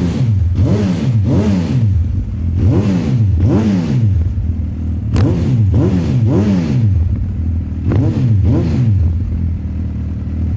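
Suzuki Hayabusa's 1340 cc inline-four revved through an Akrapovic aftermarket dual exhaust in a series of quick throttle blips, each rising and falling in pitch. It settles to a steady idle near the end.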